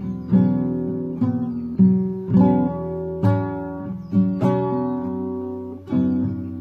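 Solo acoustic guitar playing ringing chords, a new chord or note struck about every half second to a second and left to sustain, with no singing.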